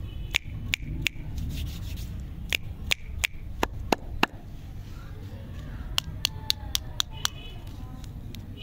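Fingers tapping and handling plastic-wrapped lollipops, a string of sharp crinkly clicks in two clusters, over a low steady rumble.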